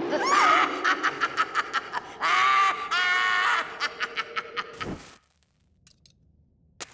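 A cartoon character's long, high-pitched cackling laugh in rapid pulses, breaking off with a falling glide about five seconds in.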